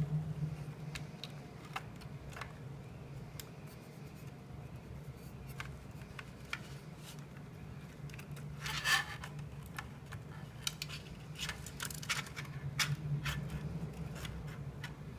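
Hands handling the printer's endstop wires and plastic connectors: scattered small clicks and rubbing, with a louder rustle about nine seconds in, over a steady low hum.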